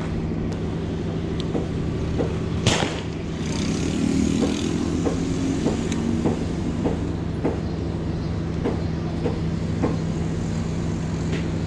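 A spinning rod casting a small crankbait, with a sharp swish about three seconds in and a brief hiss of line running off the reel. After that the reel is cranked to retrieve the lure, with light ticks about every half second or more. A steady low engine hum runs underneath throughout.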